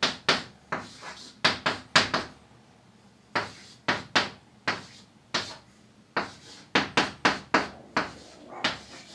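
Chalk writing on a chalkboard: an irregular run of sharp taps and short scratches as each symbol is written, with a brief pause about two seconds in.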